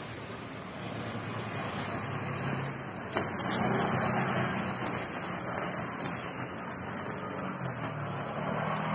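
Electric arc welding on a steel bar: a steady sizzling hiss that grows louder and brighter at about three seconds in and eases off again a second before the end.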